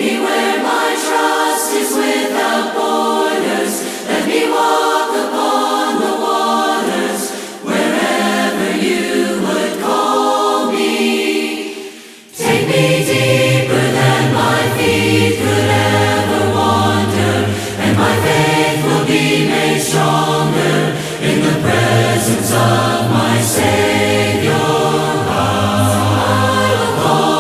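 Choir singing a hymn a cappella. Only higher voices at first; low men's voices join about twelve seconds in, after a brief dip.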